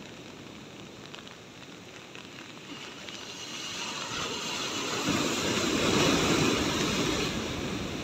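Heavy ocean surf: a wave rolls in and breaks against concrete breakwater blocks. The rush of foaming water swells from about three seconds in and is loudest a little past the middle, then eases slightly.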